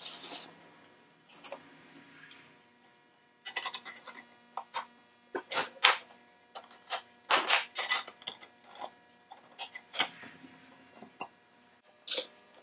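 Metal lamp parts and hand tools clinking and knocking on a workbench as they are handled, in irregular clusters of sharp clicks, with a brief hiss at the very start.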